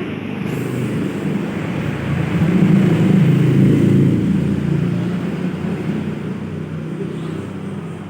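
Motor vehicle noise, a low rumble that swells to a peak about three seconds in and then slowly fades, like a vehicle passing close by.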